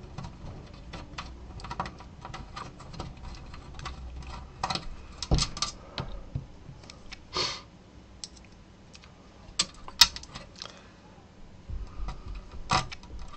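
Irregular small clicks and taps of hands working on a monitor's power-supply circuit board in its metal chassis, with a sharp tick about ten seconds in.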